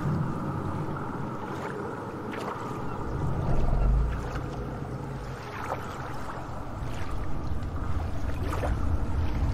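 Sea water ambience: a steady wash of water with a deep rumble that swells about three and a half seconds in and again near the end.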